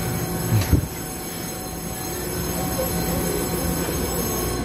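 Steady hum and rumble inside a Taiwan Railway EMU730 electric commuter train standing at a platform with its doors open, with a short low thump about three-quarters of a second in.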